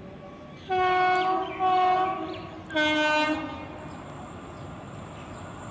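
Electric locomotive's horn sounding three blasts in quick succession, the third one lower in pitch, as the train approaches. A steady rumble of the approaching train runs underneath and carries on after the horn.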